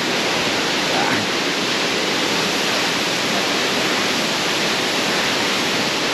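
Steady, even rush of a waterfall close by: falling water and spray pouring onto rock.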